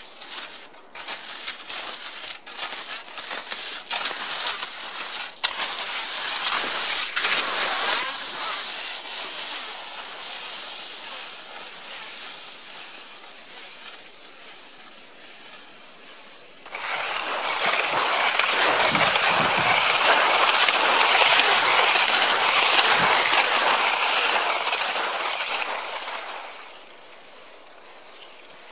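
Peltonen Metsä Step forest skis sliding and scraping over snow, stride after stride, with short clicks and crunches early on that fade as the skier moves off. About halfway through a louder, denser swishing starts, lasts about ten seconds, then drops away abruptly.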